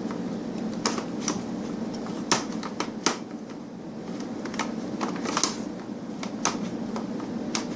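Giant Rubik's cube's layers clicking and clacking as they are twisted by hand: about nine sharp, irregular clicks over a steady low hum.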